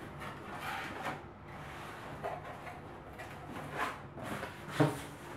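Cardboard box and straw-like packing fill being handled: rustling and scraping as the box is slid across a table, with a sharp knock near the end.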